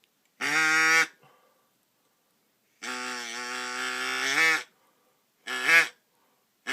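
Imitation mallard duck calls, four quack-like honks: a short one, a long drawn-out one with a wavering pitch, then two short ones near the end.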